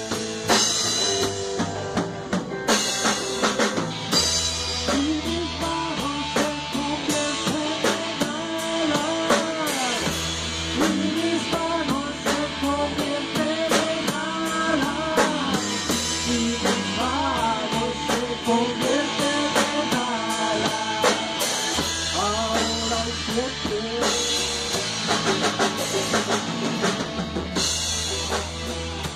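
Rock band playing an instrumental passage: electric guitar lead line with bending notes over a drum kit and electric bass.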